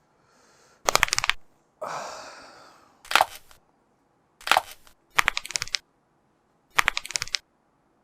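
Human joints being cracked: five short clusters of sharp pops, each a quick run of cracks like knuckles popped one after another. A longer noise about two seconds in fades out over about a second.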